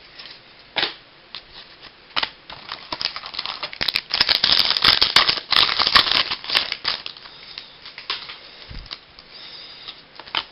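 Trading cards and pack wrapper being handled: a run of crisp clicks and crinkling, densest in the middle, with scattered single clicks before and after.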